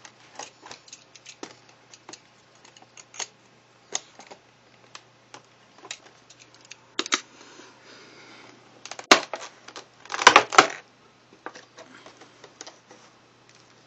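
Clear plastic blister tray being handled and opened: scattered clicks and crackles of stiff plastic, a stretch of scraping about seven seconds in as the tape is peeled off it, and the loudest burst of plastic crackling about ten seconds in as the tray is pulled apart.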